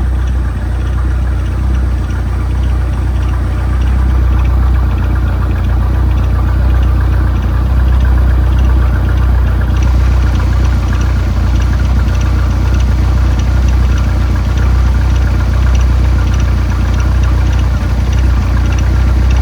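A freshly overhauled 2.3-litre turbocharged four-cylinder engine idling steadily, with its idle air control valve disconnected. It gets slightly louder about four seconds in.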